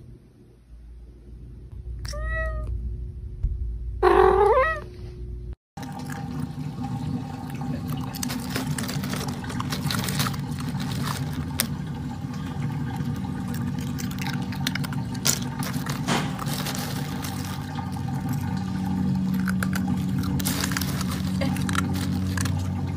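A cat meows twice, a short meow about two seconds in and then a longer, louder one. After a cut, a steady low hum with dense crackling and rustling noise follows.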